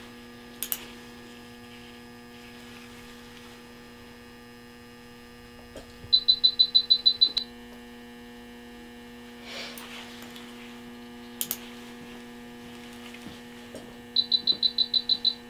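Patient-monitoring equipment in the operating room sounding two short trains of rapid, high-pitched beeps, about nine beeps each, roughly eight seconds apart, over a steady electrical hum. A few faint clicks of surgical instruments are heard between them.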